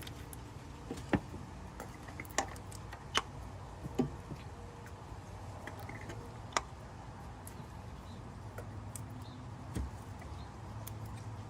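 Scattered sharp clicks and knocks, about six over several seconds, of an ignition coil being handled and pushed back into the spark plug well of a Honda Accord four-cylinder engine, over a low steady hum.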